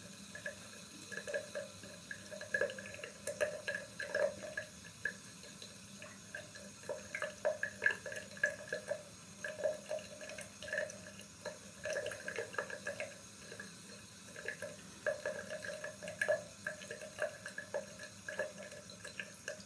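Water from a bathroom tap trickling and dripping into a sink, an uneven patter of small splashes.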